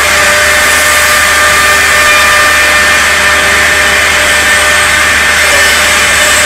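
Woodworking CNC machine running steadily, its spindle giving an even high-pitched whine over loud steady noise.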